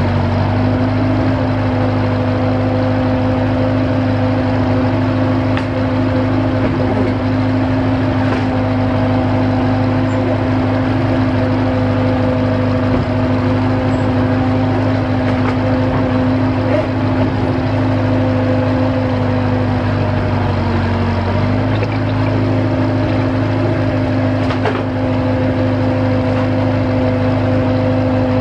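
Engine of a compact tracked limited-access drill rig running steadily and close by as the rig travels down a ramp. About three-quarters of the way through, its pitch sags briefly and then recovers.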